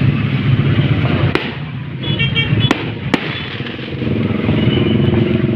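Firecrackers going off in single sharp bangs, three of them, over a steady low rumble of background noise.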